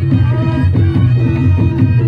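Reog Ponorogo gamelan music: a reedy slompret shawm holds a sustained, droning melody over steady drum and gong strokes, played loud through a sound system.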